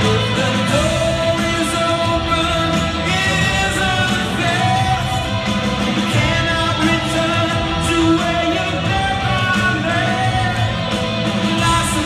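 Live rock band playing in an arena, with electric guitar and a singer's voice over the full band, heard from the crowd through the venue's PA.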